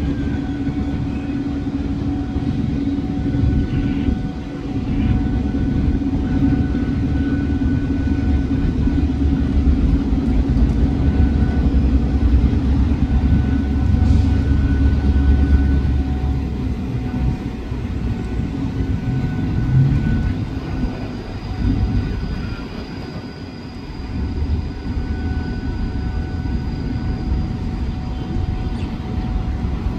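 Alsthom 4304 diesel-electric locomotive running as it slowly approaches and draws into the station: a low engine drone and hum, loudest about halfway through and easing off afterwards, with faint steady high tones over it.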